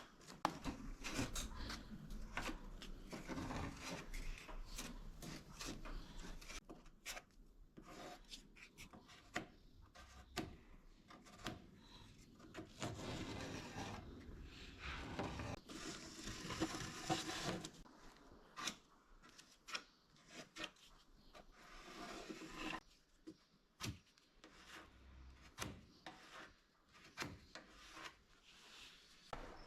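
Body filler being scraped and smeared with a spreader onto a car's metal body panel: faint, irregular rubbing and scraping strokes with occasional light clicks.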